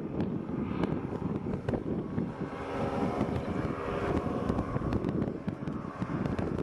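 Wind buffeting the microphone over the steady drone of a powered parachute's engine in flight, the engine tone coming through most clearly around the middle.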